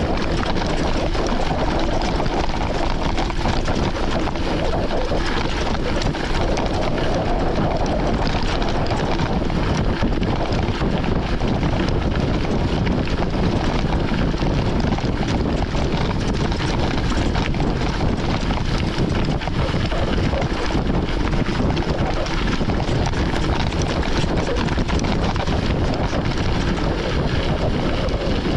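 Wind rushing over the microphone of a camera carried on a mountain bike riding a gravel forest road: a loud, steady rush that never lets up.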